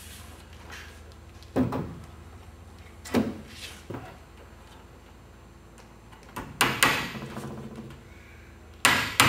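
Claw hammer on a timber architrave being nailed to a door jamb: a few separate knocks and taps spaced a second or more apart, then a quick run of hammer blows on a nail starting near the end.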